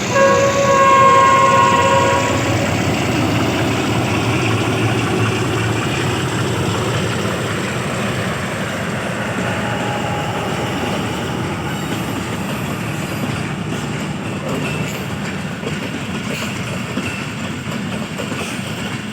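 Passenger train departing: the locomotive horn sounds once for about two seconds at the start. The train's rumble and clatter then runs on steadily as it pulls out, slowly fading.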